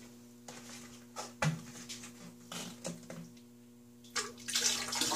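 White vinegar poured in a thin stream from a plastic jug into a stainless steel sink of water, splashing from about four seconds in, after a few small clicks and knocks of the jug being handled. A steady low hum runs underneath.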